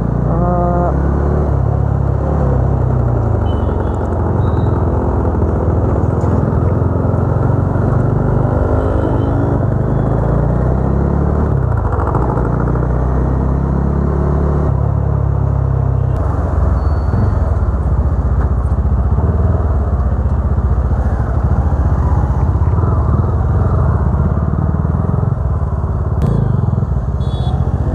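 Bajaj Dominar's single-cylinder engine running on the move, its pitch rising and falling several times as it accelerates and eases off, over a steady rush of wind and road noise.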